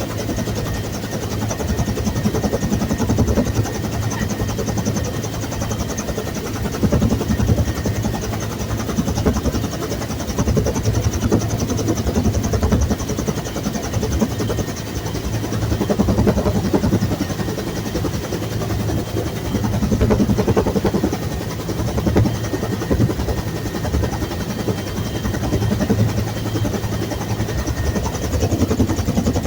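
Bell UH-1 Huey helicopter running: a steady, heavy drone of rotor and engine that swells and eases every few seconds.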